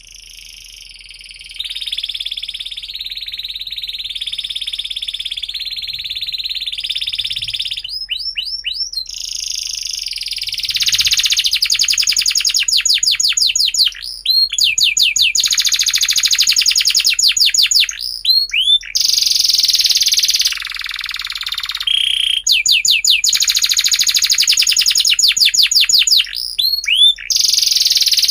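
Domestic canary singing a long, unbroken song of high trills and fast runs of repeated rising chirps, several a second.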